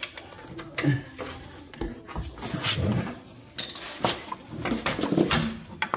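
Irregular metal clanks, knocks and scrapes of a pry bar levering a CV axle's inner joint out of the transmission case.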